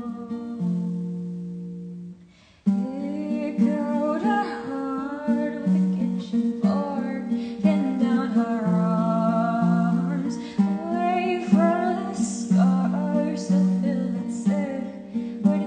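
Acoustic guitar and a solo singing voice performing a song. A held guitar chord fades almost to silence, then about two and a half seconds in the strummed guitar and the singing come back in abruptly and carry on.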